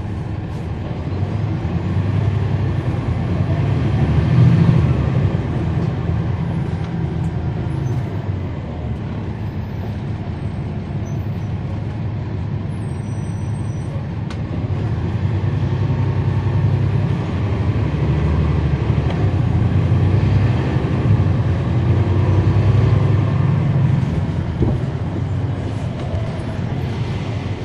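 Cummins ISL9 six-cylinder diesel engine of a transit bus, heard from the rear of the bus as it drives. The engine note swells twice, a few seconds in and again past the middle, as the bus pulls harder, then eases back.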